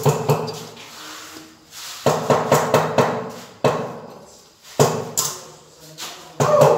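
Floor tile being tapped down with a mallet to bed it into the mortar and bring it level: groups of several quick taps with short pauses between.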